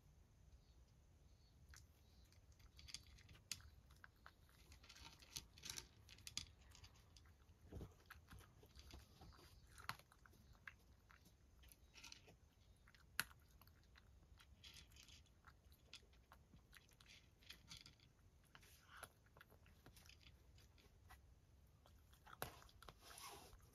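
Cat eating dry kibble: faint crunching in irregular clusters of short clicks.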